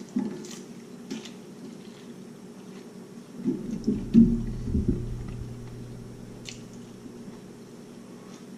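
Person biting into and chewing fried chicken breast, with soft wet chewing sounds and a louder spell of low sound around the middle.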